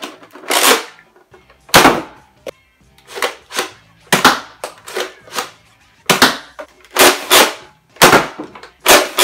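Pump-action Nerf blasters, a Doomlands Vagabond and then the Rival Atlas XVI-1200, being worked and fired. It is a run of sharp plastic clacks from the pump strokes and shots, many in quick pairs, about a dozen in all.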